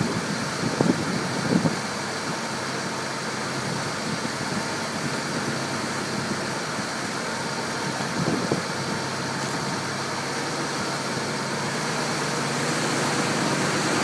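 Water taxi's engine running steadily underway, with the churn of its wake. A few brief bumps come twice about a second in and once about eight seconds in.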